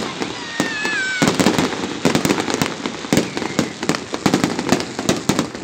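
A fireworks display going off: dense crackling and popping reports, many a second. A brief high wavering squeal sounds about half a second in.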